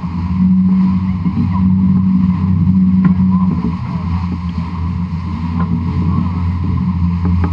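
A historic 18-foot skiff humming as it sails at speed: a steady low hum with a second, higher tone above it, over the rush of water. The higher tone weakens about halfway through.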